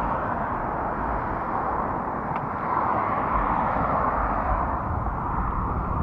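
Wind buffeting the microphone of a bike-mounted action camera while cycling: a low rumble under a steady rushing noise, swelling louder for a couple of seconds midway.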